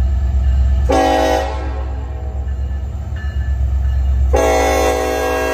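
Norfolk Southern diesel freight locomotive blowing its air horn for a grade crossing as it approaches, over the steady low rumble of its engine. There is a short blast about a second in, a fainter one around three seconds, then a long blast from about four and a half seconds in.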